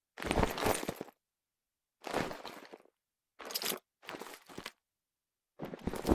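Pleather handbag with an attached metal chain strap being handled on a hardwood surface: five short, separate bursts of handling noise, each under a second, with silence between them.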